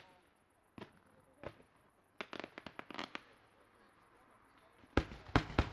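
Aerial fireworks going off: a couple of single pops, then a quick run of crackling reports about two to three seconds in. After a short lull, three loud bangs follow in quick succession near the end.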